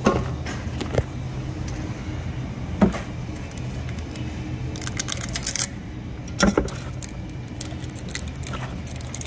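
Pliers clinking and knocking against the valve of an R404a refrigerant cylinder as it is worked open, a few sharp metal knocks and a quick run of crackly clicks about five seconds in, over a steady low hum.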